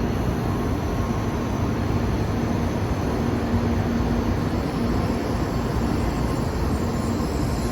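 Tokaido Shinkansen train heard from inside the car: a steady running rumble and hiss with a faint even hum.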